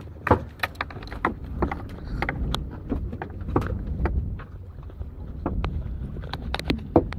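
A fishing boat's engine runs with a steady low rumble, under scattered sharp knocks and clicks from handling on the boat.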